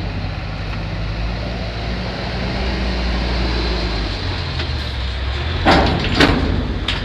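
Diesel engine of a large container truck running as the truck moves slowly past at close range. Near the end come two short, loud, sharp noises about half a second apart.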